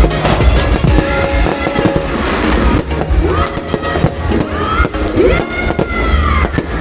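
Fireworks going off in a rapid string of bangs and crackles, over background music.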